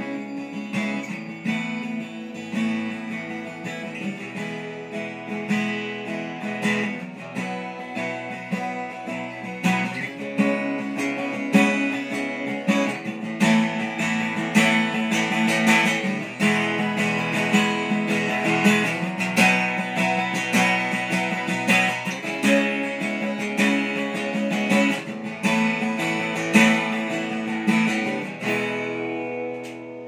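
Tayste Infinity 40-inch acoustic guitar with a spruce top and walnut back and sides, played fingerstyle with picked notes and strummed chords. The playing dies away near the end and the last notes ring out.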